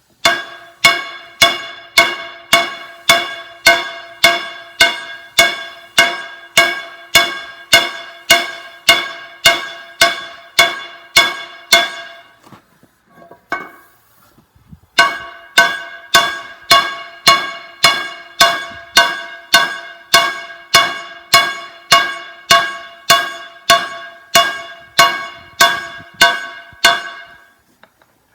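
Hammer blows on a forge-hot steel cable tool bit on an anvil, a steady run of about two strikes a second, each with a bright metallic ring. The bit's worn, rounded edges are being hammered out to sharpen it. The hammering pauses for a couple of seconds about halfway through, then picks up again.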